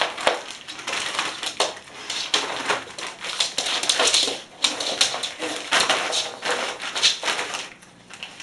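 Plastic snack bag crinkling and crackling irregularly as a Chinese Shar Pei paws and noses at it, dying down near the end.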